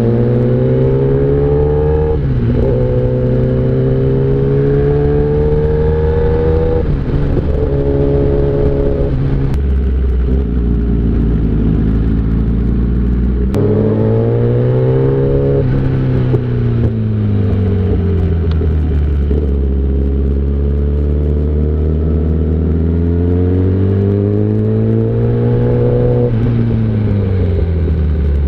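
1000cc inline-four superbike engine under way, its revs climbing in three quick rises through the first ten seconds, then steadier for a few seconds, then falling and rising again in long swells as the throttle is opened and closed.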